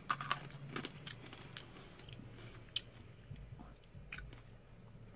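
Quiet wet mouth sounds, lip smacks and tongue clicks, as a person savours a hard candy: a cluster in the first second, then a few scattered clicks.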